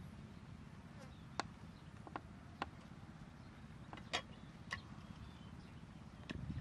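Cleaver blade knocking and tapping on a round wooden cutting board while minced garlic is scraped together, several sharp irregular knocks over a low steady hum.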